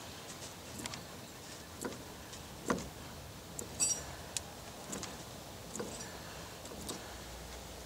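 Irregular metallic clicks and clunks, roughly one a second, from the gears of a 1955 Willys' Dana 25 front differential as the ring gear and carrier turn slowly; the ring gear is loose on its flange with several of its bolts sheared. One click a little under three seconds in is the loudest, and another just before four seconds rings briefly.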